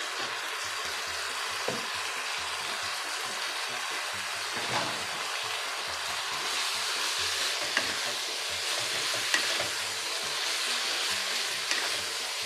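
Pork and kimchi sizzling in a nonstick wok while a wooden spatula stirs them: a steady frying hiss with a few light scrapes of the spatula.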